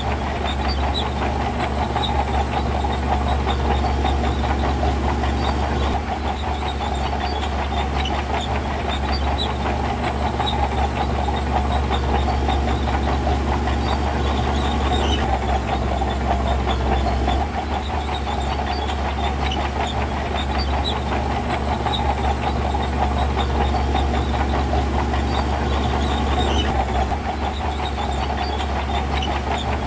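Heavy diesel earthmoving machinery running steadily under load, with a deep engine drone and light metallic clatter, easing off briefly a few times.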